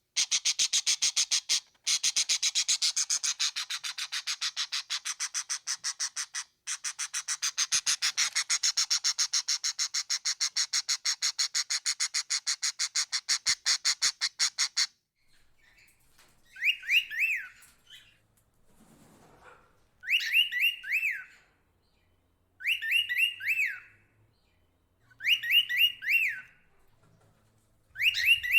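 Birds calling: a dense, very fast rattling chatter for about the first fifteen seconds, then a short phrase of a few quick rising-and-falling whistled notes repeated five times, every two to three seconds.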